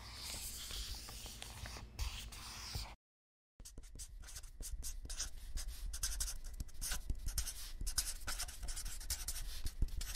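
Writing sound effect of a pen scratching on paper. A smooth scratchy swish runs for about three seconds, breaks off briefly, then gives way to quick, busy scratching strokes for the rest.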